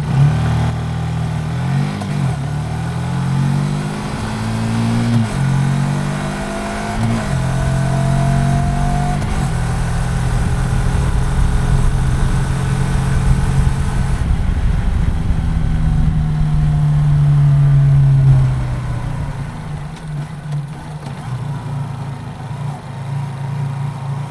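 Honda CBF125R's single-cylinder 125 cc four-stroke engine running through its stock exhaust, the revs rising and falling several times in the first seven seconds, then holding steady and loud before dropping to a lower, steady note about eighteen seconds in.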